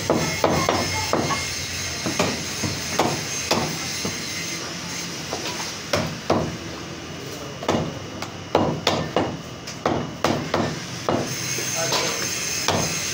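Butcher's cleaver chopping goat meat on a thick wooden chopping block: runs of quick, sharp chops, several a second, broken by short pauses while the meat is repositioned.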